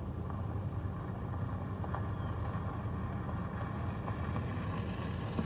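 Steady low rumble of a vehicle's engine and running noise, heard from inside the cab.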